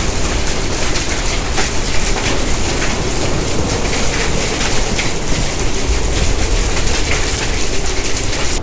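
Hailstones of about two inches falling in a heavy downpour: a dense, steady hiss of rain with many sharp clicks of stones striking, over a deep low rumble.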